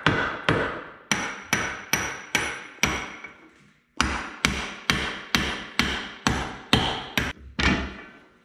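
Hand hammer striking the steel pin at the blade cylinder's mount on a Kubota KX121-3 excavator's dozer blade, to drive the pin out and remove the blade. There are about two metallic, ringing blows a second, with a short pause a little before the halfway point.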